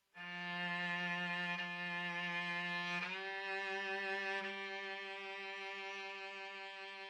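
Background music: one long held bowed-string note that starts suddenly, shifts slightly about three seconds in, and slowly gets quieter.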